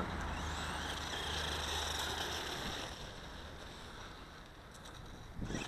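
WLtoys P949 RC tractor's electric motor whining and its tyres hissing on asphalt as it runs at speed. The sound grows fainter from about halfway through as the tractor draws away.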